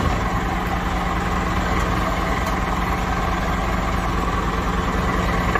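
Scania truck's diesel engine idling steadily.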